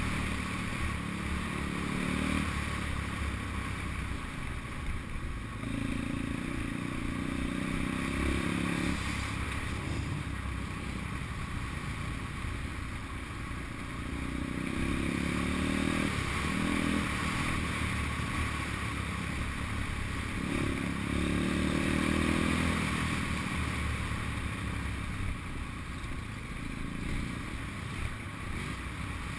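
Pit bike engine under way, its throttle opened and eased off several times so that the engine note swells and drops back.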